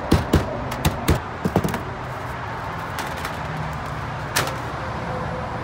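Small sledgehammer striking a rain gutter leaf-guard mesh against a workbench to flatten its bends: a quick run of about eight blows, a pause, then one more blow.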